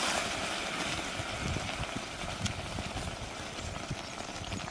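Stew simmering in a cast iron pot over coals while being stirred with a wooden spoon, with a steady low rumble underneath.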